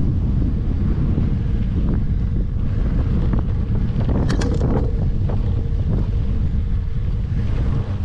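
Wind buffeting the microphone of a mountain bike's ride camera, a loud steady low rumble, while the tyres run over a sandy dirt trail with scattered small rattles and clicks. A short cluster of sharper clicks comes about four seconds in.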